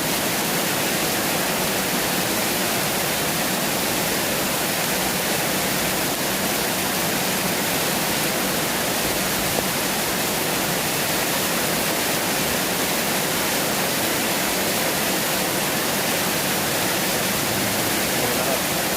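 Rain falling steadily, an even, unbroken hiss of water.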